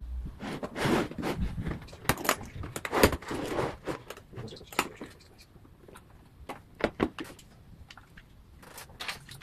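Black hard plastic tool case of a McCraft cordless drill kit being opened and handled: sharp plastic clicks and knocks with rustling, several separate knocks a second or so apart, as the lid comes open and the drill is lifted out of its moulded slot.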